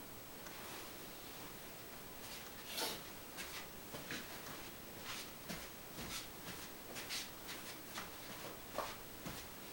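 Footsteps of shoes on a carpeted floor as a person walks around the room, soft steps about two a second that start about two seconds in, over a faint room hiss.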